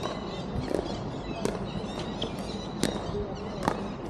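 Pickleball paddles hitting the hard plastic ball in a rally: a string of sharp pops, about four loud ones at uneven spacing of roughly a second, with fainter knocks between.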